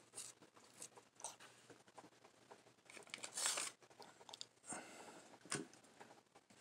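Quiet rustling and small clicks of things being handled. About three seconds in there is a louder crinkling rustle, and near the end a stainless steel cup is set down on the tiles with a short knock.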